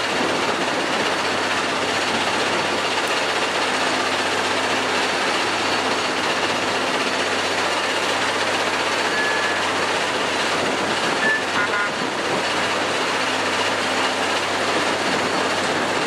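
Loram shoulder ballast cleaner running as it moves slowly along the track. It makes a loud, steady, dense mechanical noise over a low engine hum, with two brief high squeaks near the middle.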